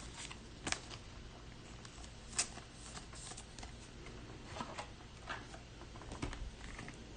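Trading cards being handled and slid against one another: scattered light swishes and clicks, two sharper ones about a second and two and a half seconds in.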